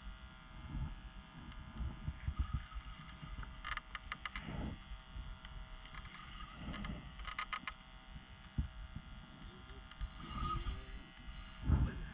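A boat's engine running with a steady, multi-toned hum over low wind and water rumble. About four and seven seconds in come two short runs of rapid clicking from a spinning reel while a hooked fish pulls on the rod.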